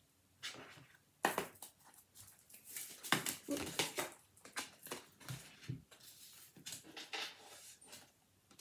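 Oracle cards being shuffled and handled by hand: a steady run of quick card flicks, riffles and soft clicks.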